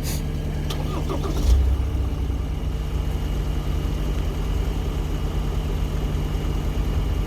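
A vehicle engine idling steadily, with a few sharp metallic clicks near the start and a heavy thump about a second and a half in.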